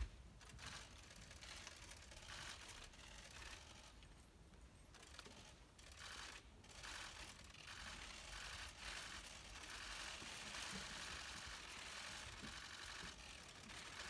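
Near silence: hushed room tone of a large hall full of standing people, with faint rustling, and a single sharp click right at the start.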